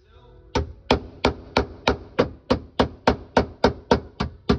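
A steel hammer striking the sheet metal of a BMW E36's strut tower in a steady rhythm, about fourteen sharp blows at roughly three a second. It is plausibly seating the patch plate before it is welded in.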